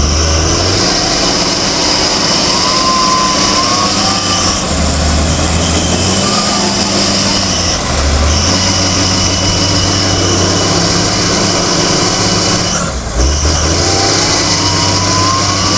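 Wheel loader's diesel engine running under load as the machine works in sand, its note rising and easing with the throttle several times.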